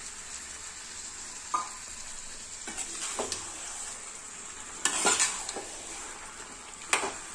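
Chicken pieces in biriyani masala sizzling in a metal pot while a steel spatula stirs them, scraping against the pan a few times, loudest about five and seven seconds in.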